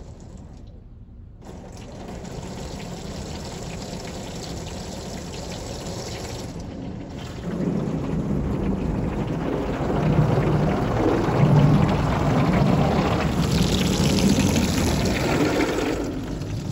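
Water spray from a Ryko SoftGloss MAXX 3 touch-free car wash hitting the car's body and windows, heard from inside the cabin. It starts a little over a second in and grows louder about halfway through as the spray comes on more heavily.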